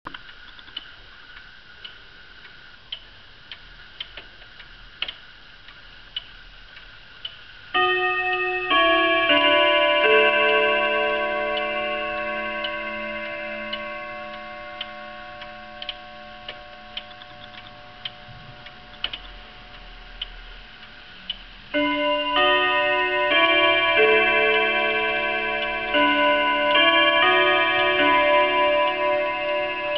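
French pendulum wall clock ticking, then its chime hammers striking the metal chime rods. A multi-note chime melody starts about 8 seconds in and rings on, slowly fading. A second chime phrase begins about 22 seconds in.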